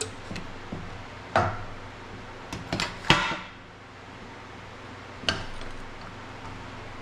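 A string of sharp metallic clanks and clicks from hand tools and a steel bench vise as a heavy battery cable is worked on. Two louder clanks, about a second and a half and three seconds in, ring briefly. A steady low hum runs underneath.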